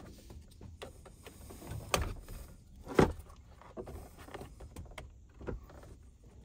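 Plastic trim pry tool levering between the halves of a Chevrolet Silverado's plastic steering column shroud: scattered plastic clicks and creaks, with two sharp snaps about two and three seconds in, the second the loudest.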